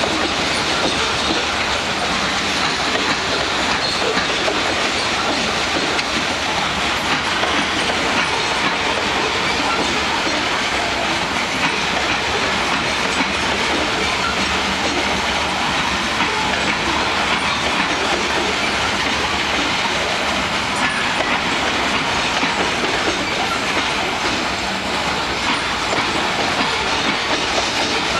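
Long freight train of gondola cars rolling steadily past, its wheels running on the rails.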